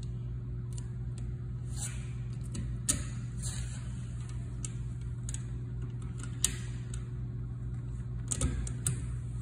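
Hand screwdriver clicking and scraping against the screws and brass terminals of an electric range's terminal block as power-cord wires are tightened down, over a steady low hum. There is a sharp click about three seconds in, another about six and a half seconds in, and a quick cluster of clicks near the end.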